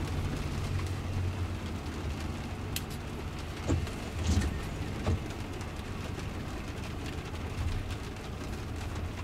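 Steady low hum inside the cabin of a Jaguar I-Pace electric car in the rain, with a couple of short swishes near the middle as the windshield wiper sweeps the glass.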